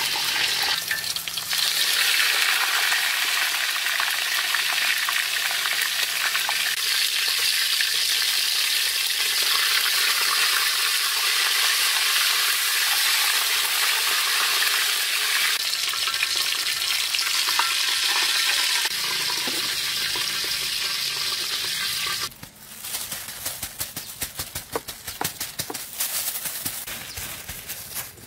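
Whole chicken deep-frying in a wok of hot oil: a loud, steady sizzle. About twenty-two seconds in it gives way to quieter scattered crackles and ticks.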